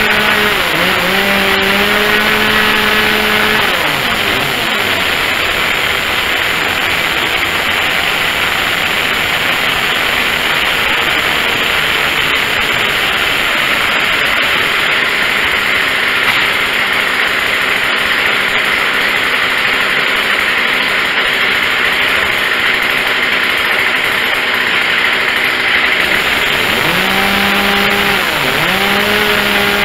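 Poulan two-stroke chainsaw running while its carburettor is being tuned. It starts high-revving, its pitch drops away about four seconds in, it runs steadily, and then it revs up again in short blips near the end.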